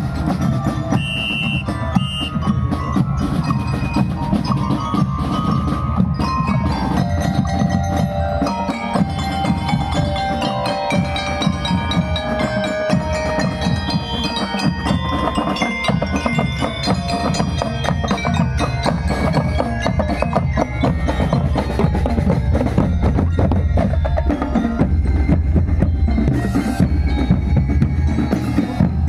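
School drum and lyre band playing a marching tune: bell lyres carry the melody over a steady beat of snare and bass drums. The drums grow louder near the end.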